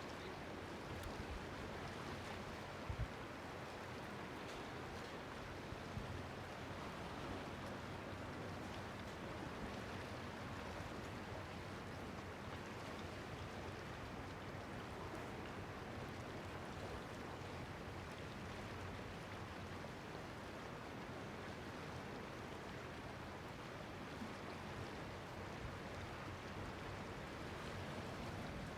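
Steady wash of sea water at a small fishing harbour, small waves lapping without a break, with a few faint knocks in the first few seconds.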